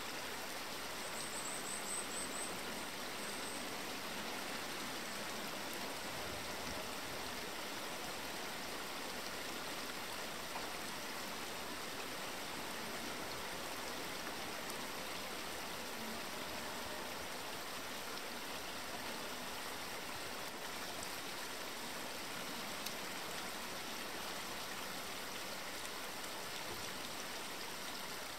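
A stream running steadily, an even rushing of water, with a brief run of high chirps about a second in.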